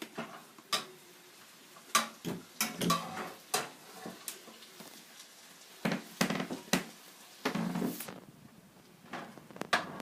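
Kitchen utensils and dishes clinking and knocking: a dozen or so sharp, separate strikes, with a longer noisier stretch a little after halfway. The sounds fit cooked stir-fried vegetables being served out of the pan onto a plate.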